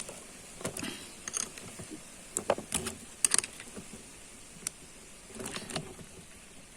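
Metal parts of an angle-grinder chainsaw attachment being handled and fitted: a scatter of short clicks and clinks, a few louder ones near the middle.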